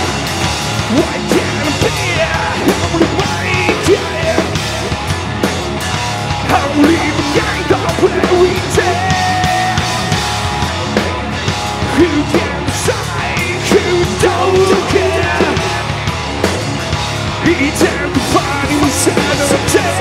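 Loud punk-metal band playing: distorted electric guitar, bass guitar and pounding drums, with a shouted, screamed lead vocal.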